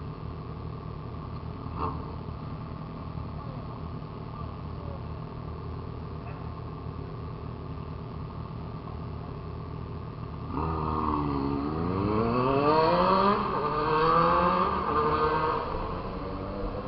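Motorcycle engine running steadily at low revs, then about ten seconds in it opens up and accelerates hard, its pitch climbing in several steps as it goes up through the gears.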